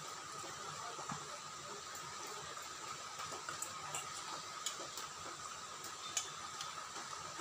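Faint eating sounds: a few short, soft clicks scattered through a few seconds as rice is mixed by hand on a steel plate and eaten, over a steady background hiss.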